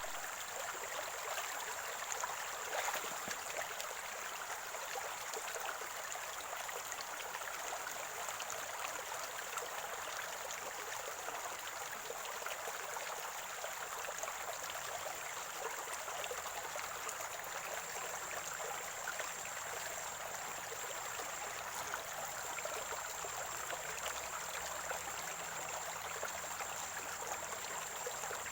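Water of a small stream gurgling and flowing steadily, with a thin, steady high-pitched tone above it.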